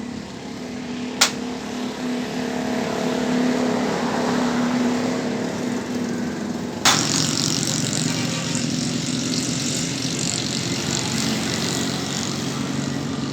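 Car engine running steadily, with a sharp click about a second in and another about seven seconds in, after which its pitch is lower.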